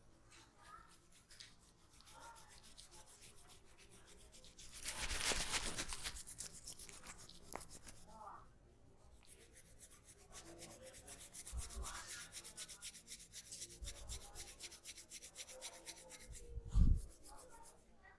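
Hands rubbing over hair and scalp in a head massage: a fast run of rubbing strokes, loudest for about a second around five seconds in. A dull thump near the end.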